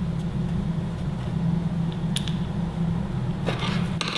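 Small plastic clicks as the back cover of a medical alarm pendant is fitted and handled, with a short rustle near the end, over a steady low hum.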